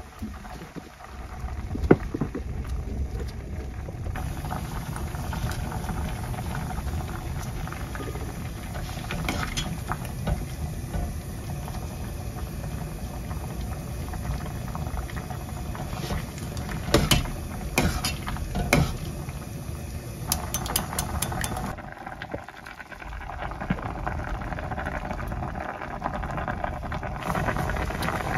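Beef rice-cake soup (tteokguk) boiling hard in a pot on a gas stove, a steady bubbling, with a few sharp clinks and knocks of utensils against the pot.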